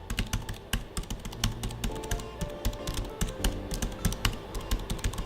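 Fast typing on a slim wireless keyboard with a plastic top: a rapid, even run of key clicks, quiet for a keyboard.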